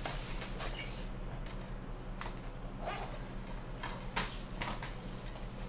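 Faint rustling and a few soft clicks of a fold-out cardboard DVD case being handled and opened, over a low steady hum.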